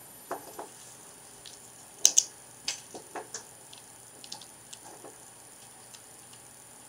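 Plastic Lego bricks clicking and clattering as pieces are handled and pressed together, in a string of small sharp clicks. The loudest is a quick pair of clicks about two seconds in.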